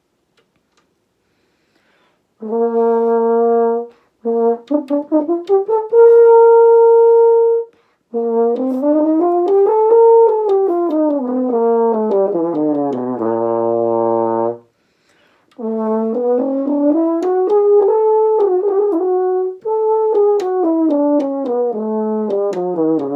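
French horn playing, starting about two seconds in: a held note, a few short broken-off notes, another held note, then two scales, each stepping up and back down, the first ending on a low note.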